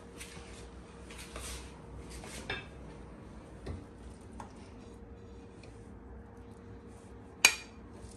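Serving spoon scraping and tapping on a dish and plate as rice is spooned out: a few light clinks in the first couple of seconds, then a single sharp clink of crockery about seven and a half seconds in.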